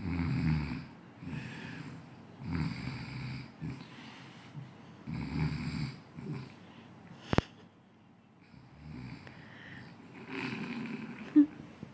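Snoring from a sleeper lying on its side: a loud rasping snore about every two and a half seconds, with softer breaths between. A single sharp click comes about seven seconds in.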